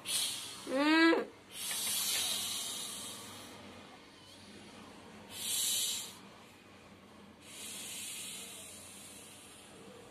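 Kittens hissing at a reaching hand, four breathy hisses of up to about two seconds each, with one short rising meow about a second in. The hissing is defensive: the kittens are scared.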